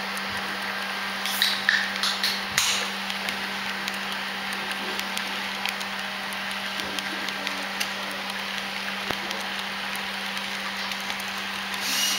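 HO scale model freight cars rolling past on the track, their wheels clicking and clattering over a steady low hum. A cluster of louder clacks comes about a second and a half in, and another near the end.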